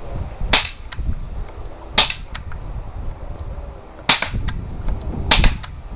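CO2-powered AK47-replica BB gun firing four single shots of .177 steel BBs at uneven intervals. Each sharp crack is followed a moment later by a fainter tick.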